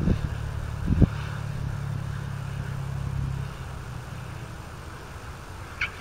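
Small propeller plane's engine running with a steady low hum as it rolls along the runway, dropping away about three and a half seconds in. A sharp thump about a second in and a short high chirp near the end.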